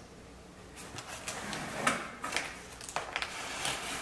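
Scissors cutting a corrugated cardboard box blank, with a dozen or so irregular snips and scrapes of the cardboard.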